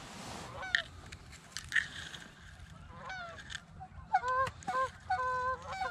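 Geese honking: a few scattered calls at first, then a quick run of short, clear honks from about four seconds in, over a low wind rumble.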